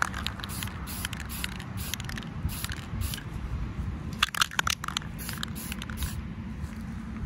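Aerosol can of olive drab spray paint hissing in a series of short bursts, the bursts coming thickest about four to five seconds in.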